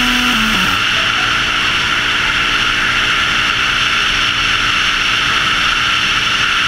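Steady rush of wind over a helmet-mounted camera at road speed, with the single-cylinder engine of a Yamaha XT660X supermoto running evenly underneath.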